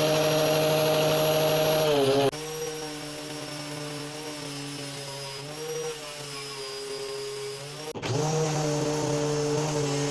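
Black and Decker angle grinder running with a 60-grit sanding disc, its motor whining steadily while a wooden pencil is ground against the disc with a rasping sound. The sound cuts abruptly to a quieter stretch about two seconds in and jumps back louder about eight seconds in.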